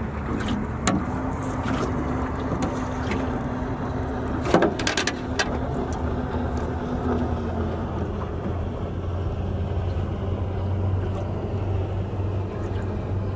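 Wind and water noise on a small boat with a low steady hum, and a quick run of knocks and rattles about four and a half seconds in as a bream is netted and lifted aboard.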